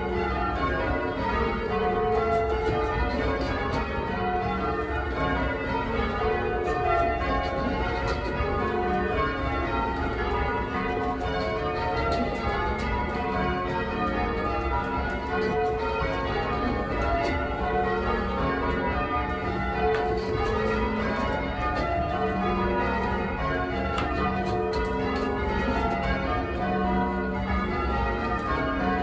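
Change ringing on a 14cwt ring of eight church bells tuned to F#, mostly cast by Taylor's: a continuous, even stream of overlapping bell strikes as the bells sound one after another in changing order.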